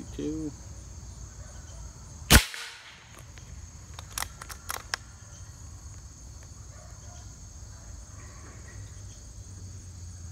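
A single shot from a Winchester Big Bore Model 70 .357 PCP air rifle, one sharp crack about two seconds in, followed a couple of seconds later by a few light clicks. A steady high insect buzz runs underneath.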